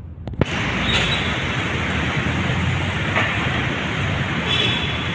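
Steady street traffic noise that starts suddenly with a click just under half a second in.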